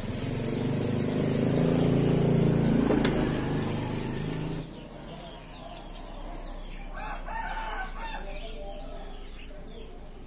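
Birds calling, with small chirps throughout and a longer pitched call about seven seconds in. Over the first half a louder low, even hum cuts off suddenly, with one sharp click in the middle of it.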